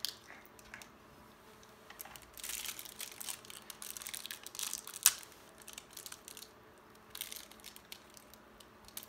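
Small plastic toy-accessory wrapper crinkling and tearing in scattered bursts as it is opened by hand, with one sharp click about five seconds in.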